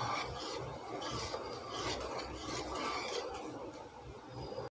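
Wooden spatula stirring sugar and water in a metal pan, with repeated scraping strokes as it drags the still-undissolved sugar granules across the pan's bottom.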